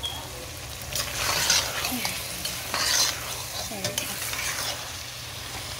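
Okra sizzling as it stir-fries in a pan of spiced onion masala, while a spatula stirs and scrapes through it. The loudest scraping strokes come about a second in and again about three seconds in.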